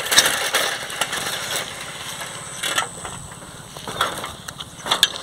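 A bicycle crunching and rattling over dry grass and loose stones, with a few sharper crunches in the second half.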